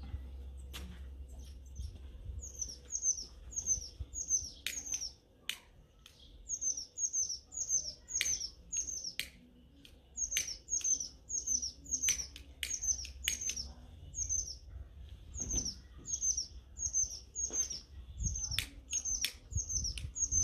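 A small songbird chirping over and over in quick runs of short, high notes that slide downward, two or three a second, with brief pauses between runs. Sharp clicks are scattered among the chirps.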